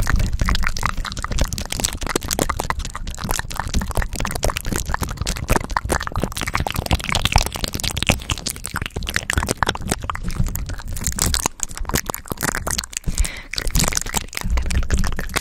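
Close-miked ASMR mouth sounds and hand sounds: a fast, dense stream of wet clicks and crackles, with hands rubbing and cupping right over a condenser microphone.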